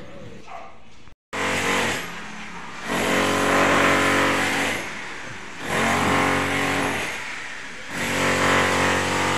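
A motor whining in repeated swells, louder and softer about four times, after a brief dropout to silence about a second in.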